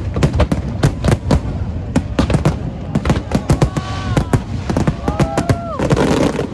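Aerial fireworks bursting in rapid succession, a dense run of bangs and crackles with a thicker crackling barrage near the end.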